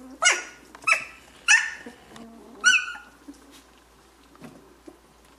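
Two-week-old Chinook puppy giving four short, high-pitched yelps in under three seconds, the last one held a little longer.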